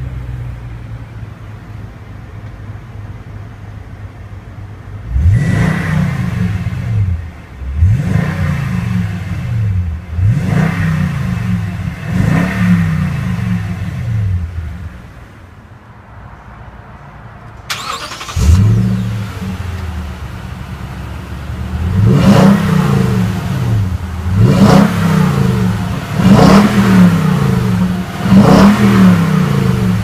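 Toyota Tundra 1794 Edition's 5.7-litre V8, freshly started, idling and then revved in four quick throttle blips, each rising and falling back. About two-thirds of the way in it is heard from behind the truck at the exhaust, idling and then revved about five more times.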